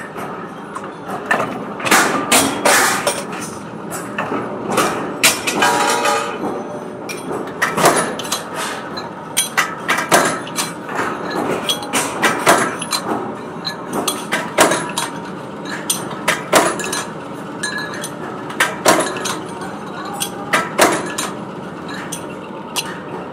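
Mechanical power press punching disc blanks out of steel plate: a string of irregular heavy metal clanks, one or two a second, over the steady running of the machine.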